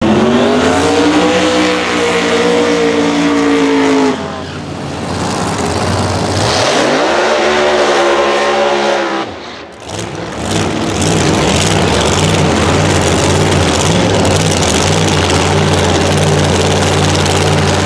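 Drag race car engines: a hard rev that climbs and holds for the first few seconds, a burnout rev about halfway through that rises and then falls back, then a steady, loud idle.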